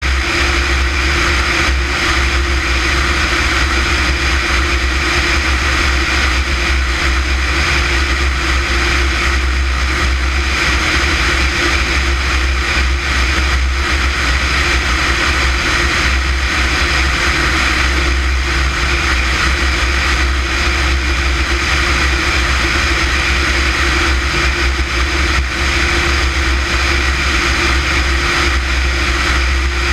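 Light propeller aircraft in level flight: a steady low engine and propeller drone with air rushing past, unchanging throughout.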